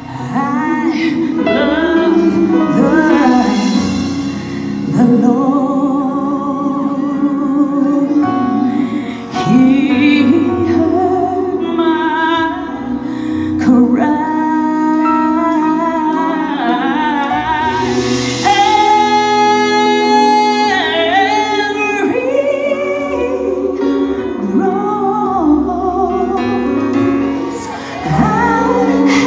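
Female lead singer singing live with backing vocalists and band, in gliding melismatic runs and ad-libs, with one long held note in the middle.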